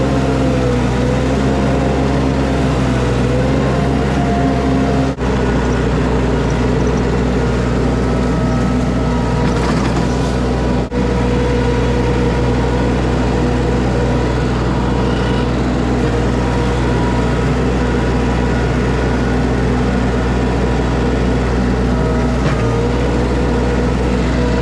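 Skid steer engine running steadily at working speed, with two brief dropouts in the sound.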